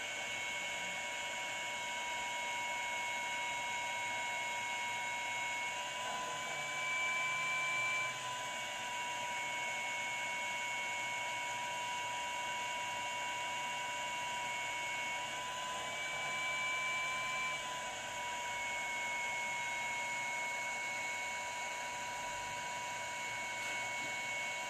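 T-862++ infrared BGA rework station running with its top heater on, reflowing the graphics card's GPU: a steady electrical whine and hum over fan noise. The whine's pitch steps slightly up and back down twice.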